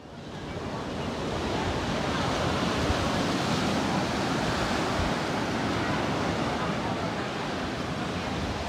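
Ocean surf breaking and washing up on a sandy beach: a steady rush of waves that swells up over the first second or two and then holds.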